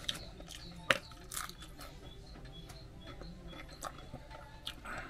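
Small clicks and crunches of someone eating, with one sharp click about a second in, over a faint low hum.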